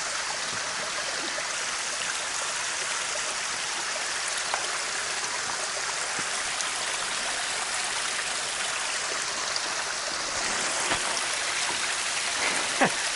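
Small rocky forest creek running steadily over stones, an even rushing trickle, with a few short clicks near the end.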